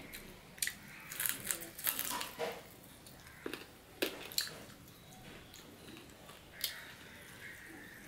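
Close-miked eating sounds: a man chewing and smacking his lips while eating polao rice with his hand, with fingers working the rice on a steel plate. Scattered short clicks and crackles come in a busy cluster in the first few seconds, then single ones further apart.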